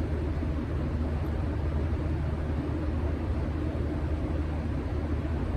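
Steady low rumble and hum of background noise, with a faint steady tone, even throughout.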